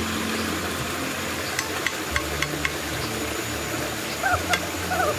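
Steady rush of flowing stream water, with scattered light clicks and a few short chirps near the end.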